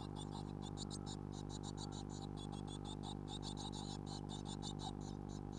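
Blue tit nestlings begging: a rapid run of short, high-pitched cheeps, several a second, as the parent feeds them. Under them runs a steady electrical hum.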